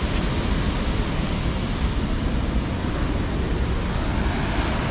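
Steady rushing roar of a rain-swollen waterfall and river, with a low rumble underneath.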